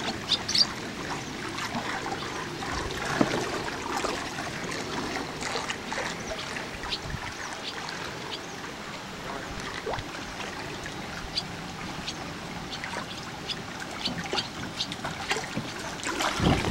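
Water lapping and trickling around a small boat, with scattered light clicks and knocks. A louder rush of noise comes in right at the end.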